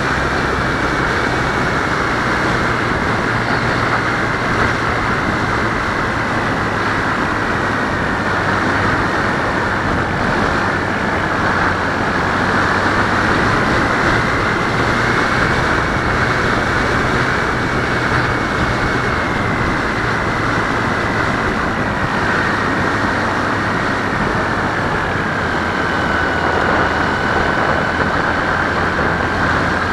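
In-flight sound from an RC plane's onboard camera: steady rushing air over the airframe, with a high propeller whine that drifts slowly up and down in pitch.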